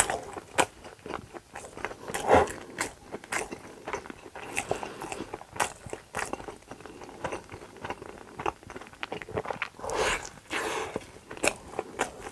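Close-miked eating: crunchy bites and chewing, a steady run of sharp crackles with louder bites about two seconds in and near the end.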